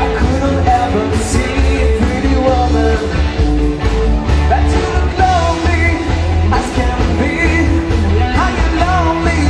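Live band playing a rock song: lead vocals over drums, bass and electric guitar, with a heavy, steady bass line.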